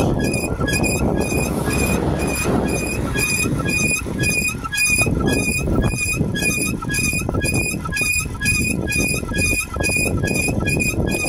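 A bicycle squeaking in a steady rhythm, about two to three short high squeaks a second, as it is ridden along, over a low rumble of wind and road noise.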